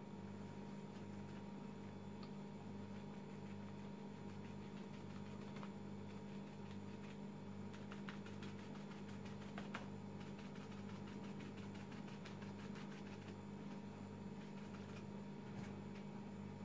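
Faint soft taps and rustles of a crumpled paper napkin dabbed with gouache onto paper, thickest in the middle. Under them runs a low, steady hum with a slow throb.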